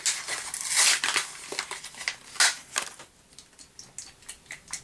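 Plastic packaging of a tube of gel glue crinkling and crackling as it is opened: irregular sharp crackles, loudest about a second in and again halfway through, then fainter scattered clicks.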